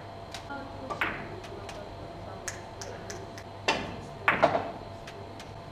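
Billiard balls knocking together on the table: a few sharp clacks, the strongest about a second in and around four seconds in, with lighter ticks between.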